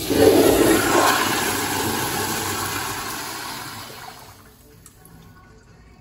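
Sloan flushometer toilet flushing: a sudden rush of water that is loudest in the first second, then fades steadily and dies away after about four seconds.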